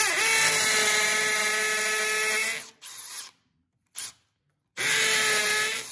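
Cordless hammer drill in hammer mode driving a small masonry bit into a concrete wall: the motor whine mixed with the rapid pounding of the hammer action on the bit. It runs for about two and a half seconds, gives a short burst, then runs again for about a second near the end.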